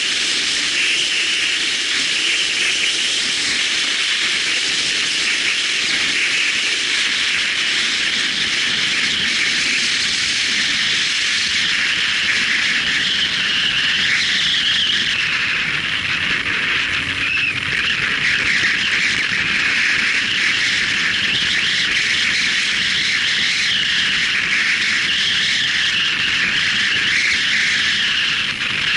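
Steady hiss of wind and road noise from a moving motorcycle in traffic.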